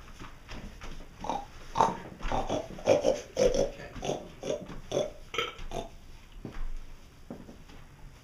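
A run of short pig-like grunts and snorts, coming quickly at first and thinning out toward the end.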